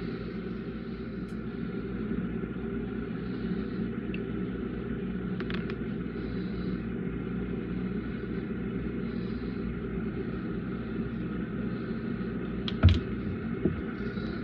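Steady low background hum, with a single sharp knock near the end and a fainter knock just after it.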